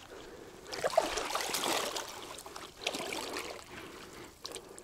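Shallow water splashing and sloshing as a pole is pushed and swept through it close to the bank, busiest from about a second in and dying down in the last second.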